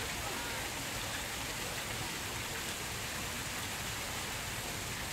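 Tiered park fountain splashing steadily, with water spilling from its bowls and jets falling into the basin in an even, unbroken patter.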